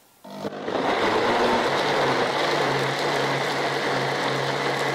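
High-speed blender starting up about a quarter second in and then running steadily. It is pulverising chopped guava and apple with coconut water on its fruit-and-vegetable juice program.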